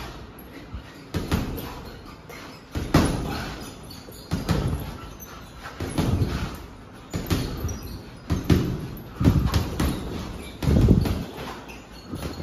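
Boxing gloves landing punches on a hanging heavy bag: a series of heavy thuds at an uneven pace, roughly one every second or so, a few coming in quick pairs.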